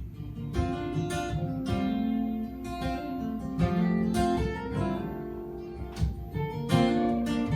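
Acoustic guitar playing the intro to a country ballad, chords strummed and left to ring between strokes, with no voice yet.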